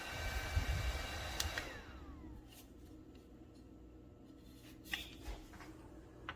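Small handheld personal fan running with a motor whine and air noise, with low rumble of the airflow hitting the microphone. It is switched off about a second and a half in, and its whine falls in pitch as the blades spin down. A few handling clicks follow.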